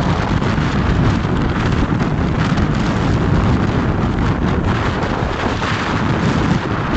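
Wind buffeting the microphone over water rushing and splashing along a boat's hull as it cuts through choppy sea.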